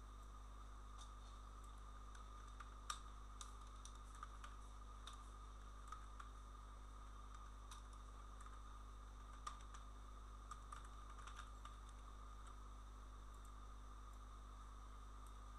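Computer keyboard being typed on: faint, irregular key clicks over a steady electrical hum.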